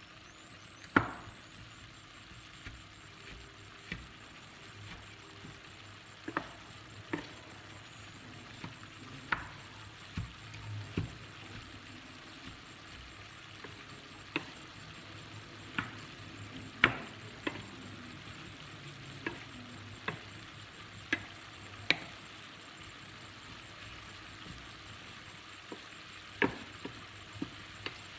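Ground beef frying with a low, steady sizzle. A wooden spatula knocks and scrapes against the pan at irregular intervals as the meat is stirred and broken up.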